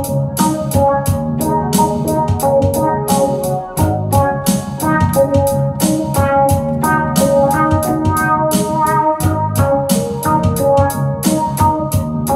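Keyboard synthesizer playing organ-like chords over a steady electronic drum beat, with hi-hat-like ticks about four a second.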